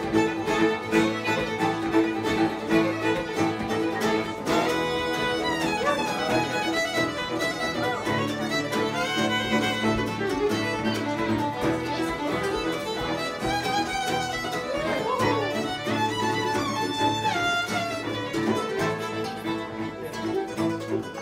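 Acoustic string band playing a lively fiddle tune: several fiddles carrying the melody over a strummed acoustic guitar and a mandolin.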